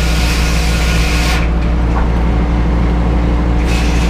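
An engine running steadily at a low, even drone. The higher hiss above it drops away for about two seconds midway.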